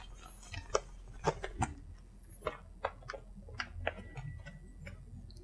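Faint, irregular crinkles and ticks from a plastic bag of dried bonito flakes (katsuobushi) being handled as a handful of flakes is pulled out.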